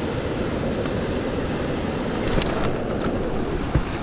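Steady rush of water pouring over a creek waterfall, with a few small clicks and knocks in the last second and a half.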